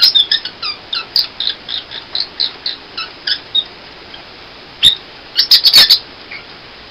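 Small green pet parrot chirping close up: a fast run of short, high chirps, about four a second, for the first three seconds, then a louder cluster of calls about five seconds in.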